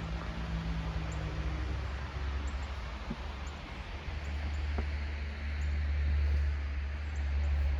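Outdoor ambience on a snowy street: a steady low rumble that swells in the second half, with faint, short high chirps scattered through it.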